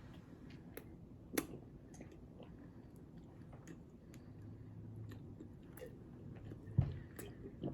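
A person chewing a mouthful of cake, with scattered small wet mouth clicks; a sharper click comes about a second and a half in and another near the end.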